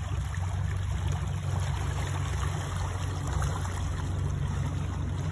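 Pontoon boat motor running steadily at low speed, with water rushing and splashing around swimmers being towed behind the boat.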